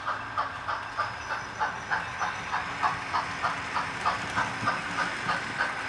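Model steam locomotive's sound system chuffing in an even beat of about four chuffs a second, over a steady hiss, as the locomotive and its passenger train run past.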